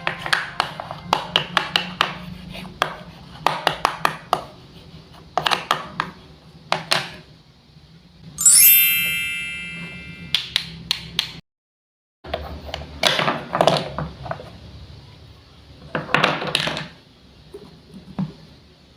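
Light wooden clicks and knocks of a toy knife and wooden play-food pieces on a cutting board, single taps and short quick clusters. A bright chime rings about eight and a half seconds in and fades over a second or two, and the sound cuts out briefly a little later.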